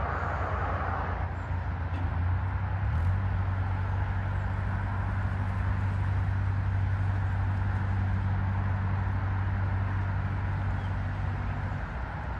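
Narrowboat engine running steadily at low revs as the boat moves along the canal: a constant low hum that eases slightly near the end.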